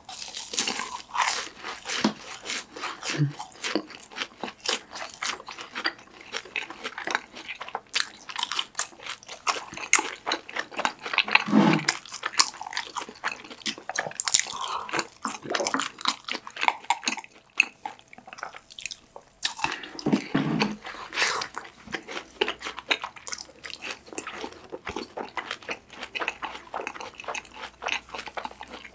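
Close-miked eating of deep-fried cheese balls: the crisp breaded crust crunching and crackling under the teeth, with chewing, in a dense run of small crackles.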